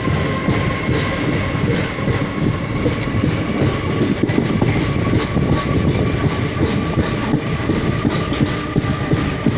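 A train running on the rails, with a steady rumble and close-spaced clattering of the wheels. Over this sits a steady whine that slowly rises a little in pitch.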